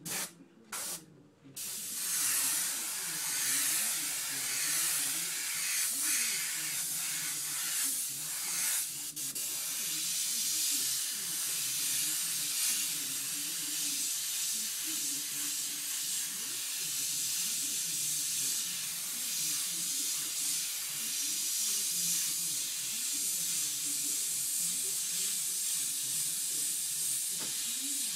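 Airbrush spraying paint: a couple of short puffs of air in the first second or so, then a steady hiss of compressed air and paint spray.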